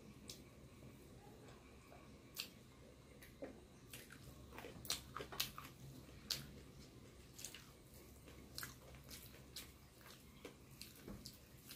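Faint close-up eating sounds: a person chewing a mouthful of rice and curry, with scattered sharp wet mouth clicks that come thickest about five to six seconds in, and soft squishes of rice being mixed by hand on the plate.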